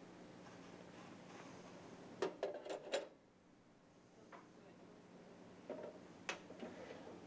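Metal denture flask halves clinking and knocking against a stainless steel tank as they are set into a stream of running water to flush out the wax, over a faint steady hiss. There is a quick run of clinks about two seconds in and a few more near the end.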